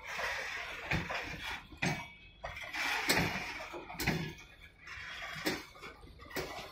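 Loaded BCNA covered goods wagons rolling slowly past: irregular metallic clanks and knocks from the wheels and running gear, with a scraping screech between them.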